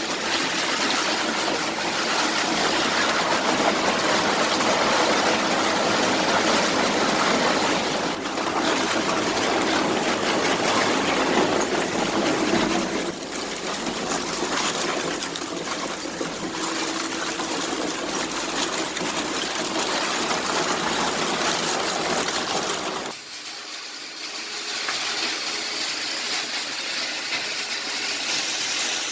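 Industrial shredder grinding electronic scrap: a dense, continuous crunching and rushing noise with a faint steady hum underneath. About 23 seconds in it dips and thins, losing its low end, then carries on.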